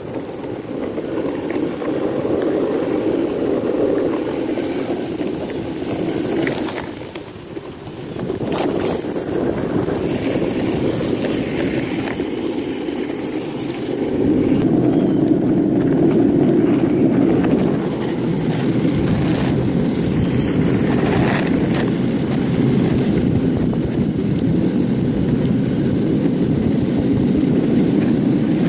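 Longboard wheels rolling over asphalt, a steady rolling noise that dips briefly about seven seconds in and grows louder about halfway through.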